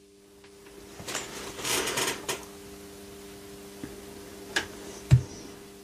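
Quiet handling noises at a painting table: a soft scratchy rustle lasting about a second, then a click and a single dull knock near the end, over a steady low hum.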